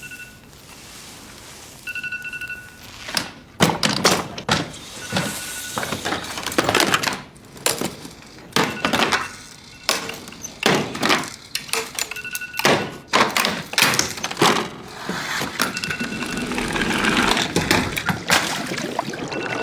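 Phone alarm beeping on and off, a short steady tone that comes back several times, among a string of thuds and knocks.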